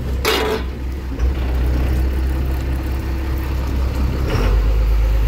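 Boat engine running steadily under way. About four seconds in its note changes and it grows a little louder.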